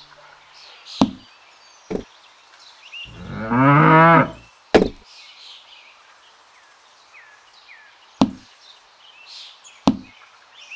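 A cow mooing once, a call about a second and a half long starting about three seconds in. Around it come several short sharp knocks as toy pumpkins are set down into a small wooden crate.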